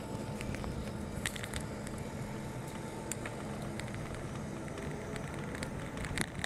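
Steady road and engine noise of a car driving along, heard from inside the moving car, with a few light clicks.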